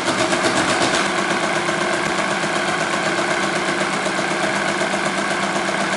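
1956 Friden STW10 electromechanical calculator running on without stopping, its mechanism clattering in a steady, rapid, even rhythm. Dividing by zero, it keeps subtracting nothing, never overflows, and is stuck in an endless division loop.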